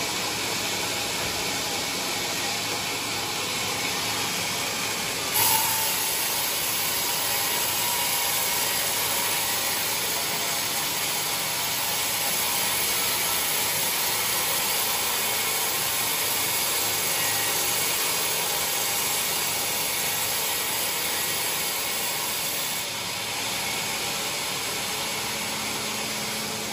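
Band sawmill running and cutting through a teak log, a steady grinding noise. About five seconds in it turns sharply brighter and hissier, and it eases again shortly before the end.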